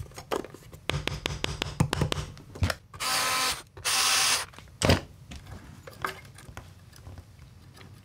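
Screwdriver fastening the screws of a guitar's control-cavity cover plate: a run of small clicks and taps, then two short whirring bursts about three and four seconds in, and a single knock just before five seconds.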